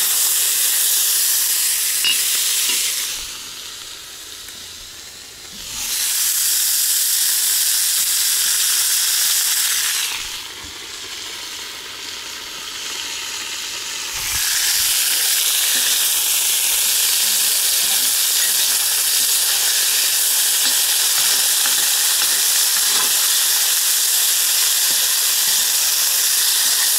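Cubes of meat sizzling as they fry in hot oil in a cast-iron kazan, stirred with a metal skimmer. The sizzle drops much lower twice, from about three to six seconds in and from about ten to fourteen, then carries on steadily.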